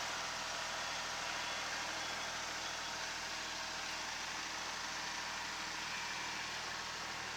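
Kubota SL28H tractor's diesel engine running steadily under work, with no sudden changes.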